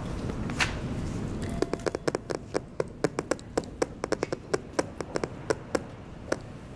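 A quick, irregular run of sharp taps or clicks, about four a second, starting about one and a half seconds in, after a low steady rumble.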